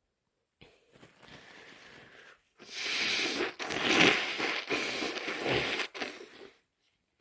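A person with a congested, snotty head cold blowing their nose hard: one long noisy blow in about three pushes, loudest in the middle, after a softer stretch of breathing about a second in.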